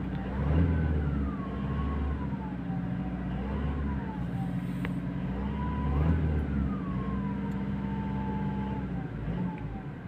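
Toyota Hilux Revo's turbocharged engine, heard from inside the cab, being revved up and let fall back twice, with a thin whistle that rises and falls in pitch with the revs. The whistle comes on acceleration and is put down to the turbocharger, which has drawn in a torn piece of the air filter.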